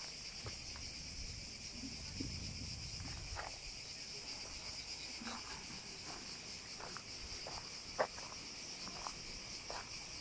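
A steady, high-pitched insect chorus, with scattered light crunching steps on a dry dirt path and one sharper tick about eight seconds in.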